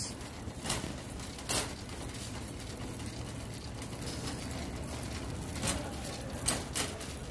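Wire shopping cart rolling over a concrete store floor, a steady low rumble and hum with a few sharp clicks and rattles, two near the start and three near the end.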